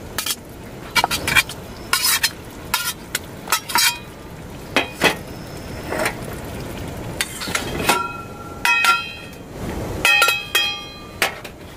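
Steel spoon stirring and scraping in a steel pan of simmering fish curry, with repeated sharp clinks over a steady hiss. Near the end, metallic ringing clanks as a steel lid is set on the pan.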